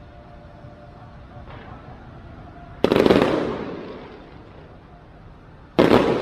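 Aerial fireworks shells bursting: two loud bangs about three seconds apart, each fading away over a second or two.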